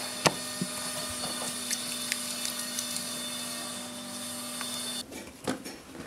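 Reeds and wooden armature being handled, with a few sharp cracks and knocks over a steady background hiss and hum. The background cuts off about five seconds in.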